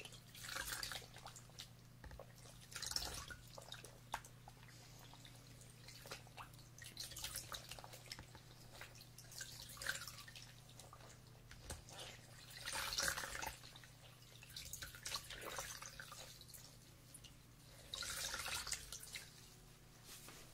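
Close-miked ASMR sounds on a binaural microphone: soft, wet, crackly bursts about every two to three seconds, over a faint steady low hum.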